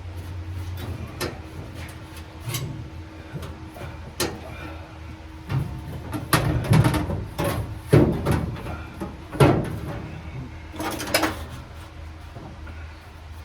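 A series of irregular knocks and clunks, several loud ones in the middle and a short rattle near the end, over a steady low hum.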